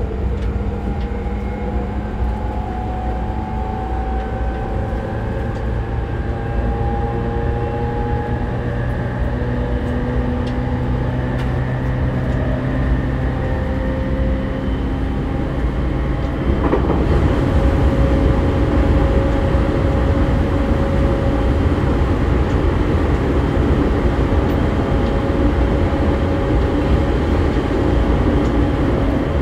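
Traction motors and inverter of a JR E231-series electric train, heard inside a motor car while it accelerates from about 58 to 90 km/h. A whine rises slowly in pitch over the first half. About sixteen seconds in, the rising tones give way to a steadier whine and louder rumbling running noise.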